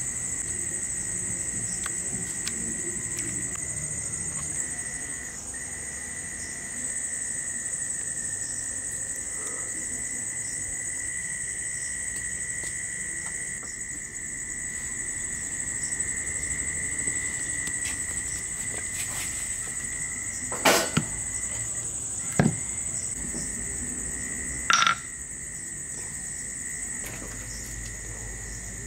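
Crickets chirring steadily at two high pitches. About three-quarters of the way through come three sharp knocks within about four seconds.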